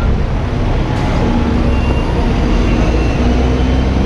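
Street traffic noise: a steady low rumble of vehicle engines.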